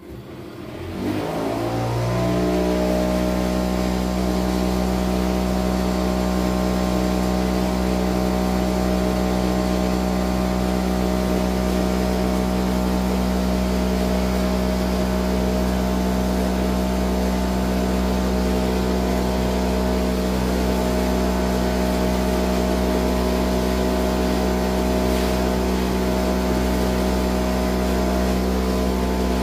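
Cotton candy machine's motor starting up, spinning the brass spinner head up to speed with a rising whine over about two seconds, then running at a steady hum.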